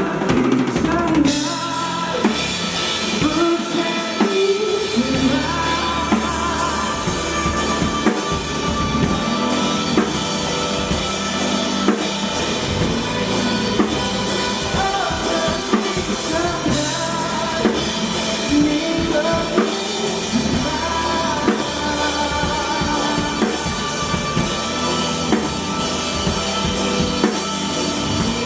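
A band playing a song live: a drum kit keeping a steady beat, with a voice singing over the instruments.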